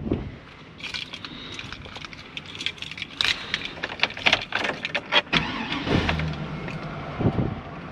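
Keys jangling, with clicks and knocks, as someone settles into a truck's driver's seat. About six seconds in, the truck's engine is started and settles into a low, steady idle. A knock follows about a second later.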